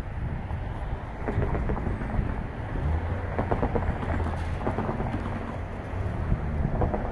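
Low rumble of a pair of EMD MP15AC diesel switcher locomotives running light toward the listener, overlaid by irregular crackling buffets of wind on the microphone.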